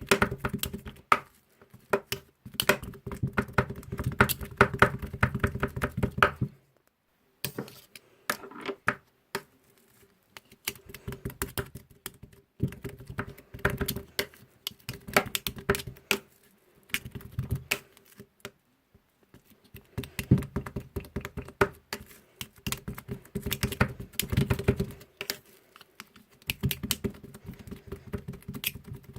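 Spatulas chopping and scraping on a metal cold plate while making rolled ice cream: rapid clattering taps in bursts of a few seconds, with short pauses between.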